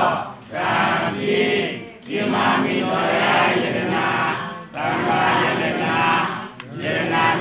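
Voices chanting in a run of phrases, each about one and a half to two and a half seconds long, with short breaks between them.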